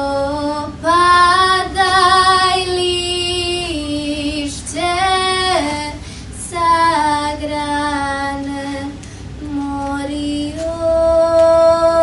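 Girls' voices singing a slow melody in long held notes, some with a wavering vibrato, phrase after phrase with short breaths between.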